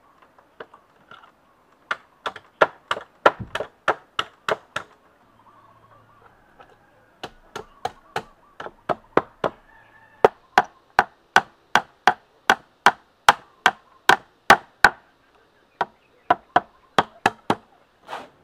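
Rapid sharp blows of a hand tool on bamboo while building a bamboo frame, about three a second, in runs broken by short pauses.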